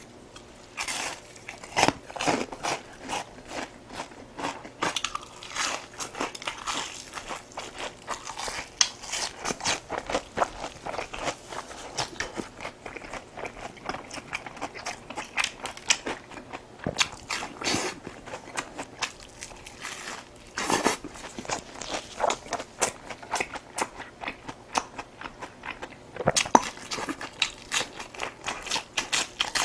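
A person chewing and biting food close to the microphone, with steady crunching and wet mouth clicks and a few louder bites.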